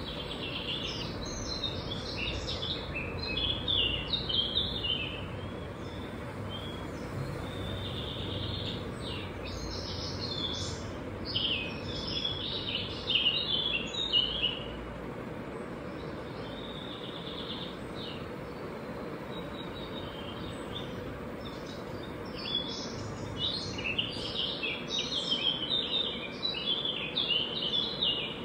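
A small songbird singing in three bouts of quick, high chirps over a steady background hum.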